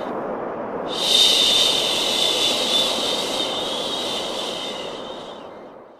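A long shushing 'shhh' laid over steady white noise, made to soothe a baby to sleep. The 'shhh' comes in about a second in and is held for several seconds, then the 'shhh' and the noise fade out together near the end.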